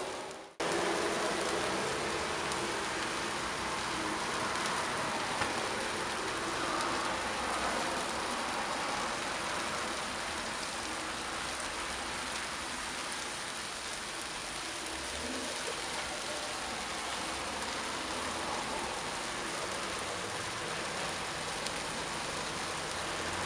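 Diced beef with peppers and onions sizzling steadily on a hot flat-top griddle. The sound drops out for a moment just after the start, then the sizzle carries on evenly.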